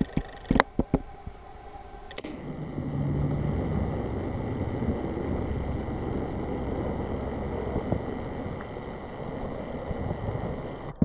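A few sharp clicks, then a steady low rumble of outdoor background noise that sets in abruptly about two seconds in.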